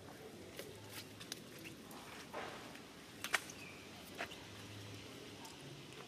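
Faint scattered light clicks and rustles of small monkeys moving over stone steps strewn with dry leaves, with one sharper click a little past halfway.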